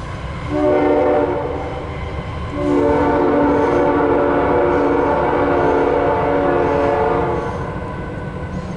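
CSX freight locomotive horn sounding a chord of several notes for the grade crossing: a short blast about half a second in, then one long blast of about five seconds. The low rumble of the approaching loaded coal train runs underneath.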